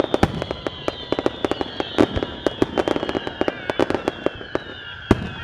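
Fireworks going off in quick succession: a rapid, irregular string of sharp bangs and pops, several a second, over a steady high-pitched tone.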